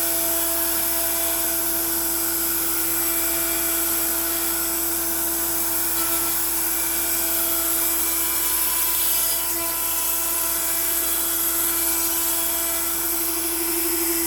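Makita trim router spinning a 1/4 inch upcut bit at about 18,000 rpm while a CNC feeds it through pine: a steady high whine with hissing cutting noise that holds unchanged.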